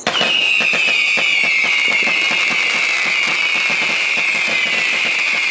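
A 14 mm, 225-shot consumer fireworks cake firing in rapid succession: dense popping and crackling with a loud, continuous high whistle that slowly falls in pitch.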